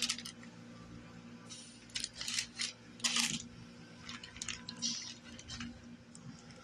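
A knife cutting a slab of lemon fudge on parchment paper: short clicks and crinkles of the blade and paper in a few brief clusters.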